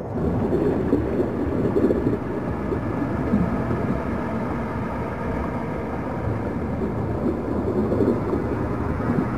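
Muffled underwater ambience: a steady low rumbling with the hiss of surf and wind cut away, and a faint steady drone of tones above it.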